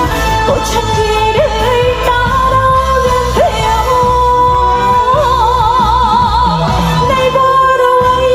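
A female singer sings live over an amplified backing track with a steady bass beat, holding long notes, one with a wide vibrato about five seconds in.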